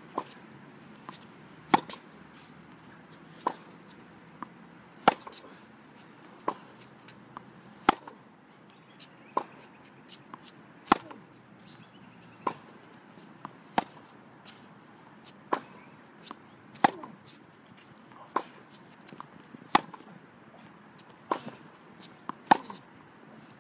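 Tennis ball being struck with rackets in a steady rally: a sharp hit about every second and a half, with softer knocks of the ball bouncing between the hits.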